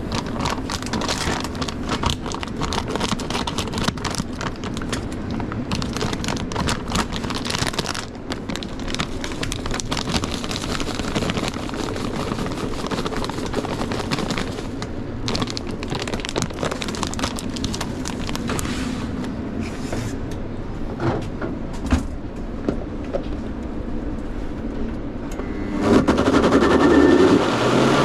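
Dense, irregular clattering and clicking over a steady kitchen hum. About two seconds before the end, an electric blender motor starts and runs with a steady whine, louder than everything before it.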